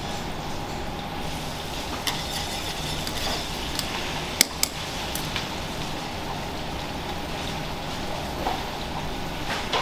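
Several sharp metal clinks of a ladle against a small stainless steel saucepan, the loudest about four and a half seconds in, over the steady background hum of a commercial kitchen.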